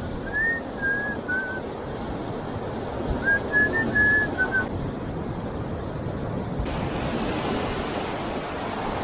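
A person whistling a short tune in two brief phrases, over a steady wash of sea surf and wind. After about seven seconds only the surf on the rocks is left, a little louder.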